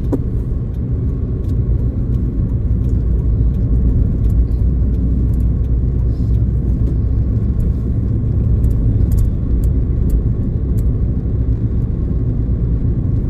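Steady low rumble of a car driving along the road: engine and tyre noise, even and unbroken.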